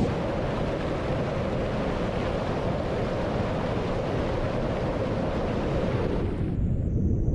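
Rushing river water: a steady, loud roar of flowing water, with wind buffeting the microphone. About six and a half seconds in, the high hiss falls away and a duller low rumble remains.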